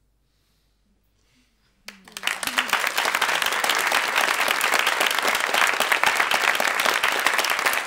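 About two seconds of near silence, then an audience starts applauding. The clapping quickly grows and holds steady.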